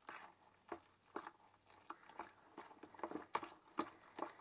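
A utensil stirring a wet grated-beetroot and egg filling in a bowl, working the eggs in: short, irregular wet strokes, a few a second.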